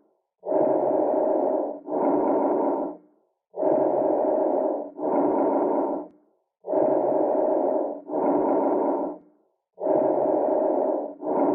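Breath sounds heard through a stethoscope: four breaths, each an inhalation followed straight away by an exhalation of about equal length, about three seconds apart.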